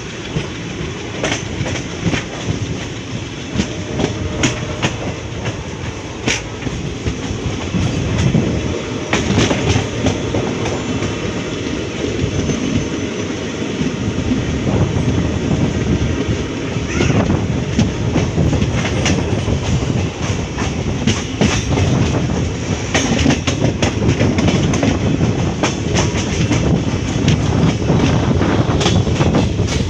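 Indian Railways intercity passenger train running, heard from on board: a steady rumble with irregular clickety-clack of the wheels over rail joints, growing louder in the second half.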